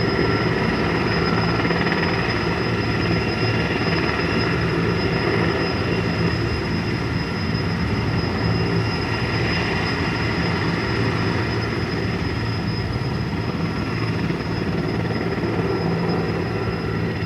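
Large helicopter running steadily, a constant high whine over dense low rotor and engine noise, easing off slightly near the end.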